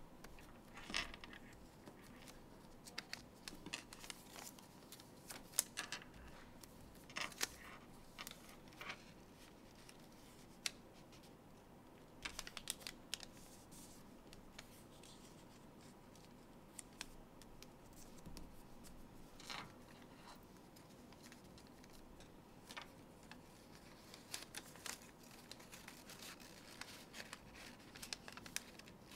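Origami paper being folded and creased by hand on a tabletop: faint rustling and crinkling with scattered sharp little clicks and scrapes, quieter for a few seconds in the middle.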